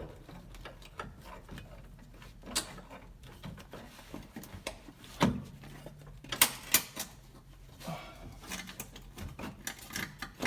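Scattered metal clicks and clunks from a classic VW Beetle's pedal cluster being worked loose and pulled out by hand, with sharper knocks about two and a half, five, and six and a half seconds in.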